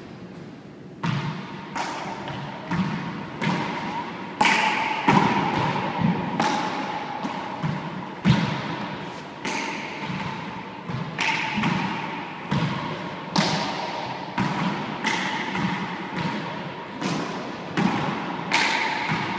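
A handball rally: sharp smacks of the small rubber ball struck by hand and hitting the walls and floor of an enclosed four-wall court, starting about a second in and coming every half second or so, each with a short echo.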